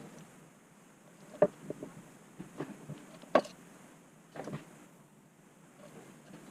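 A few sharp clicks and light knocks spread over several seconds, the two loudest about one and a half and three and a half seconds in.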